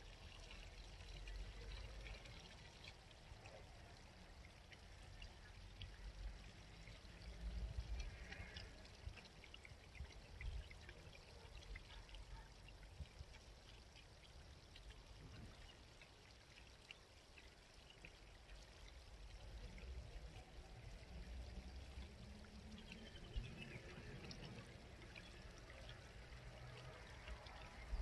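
Faint, steady babbling of a small country stream, with a low rumble that swells and fades underneath.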